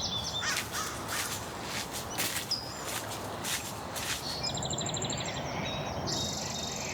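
Wild birds calling over a steady outdoor background: a string of short, harsh calls in the first few seconds, then high, rapid trills through the second half.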